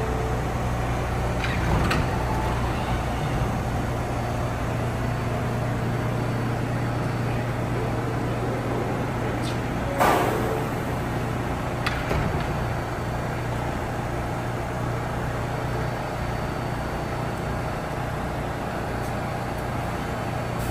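New York City subway train standing in a station with its doors open, giving off a steady low hum. A few knocks and clunks sound over it, the loudest about ten seconds in.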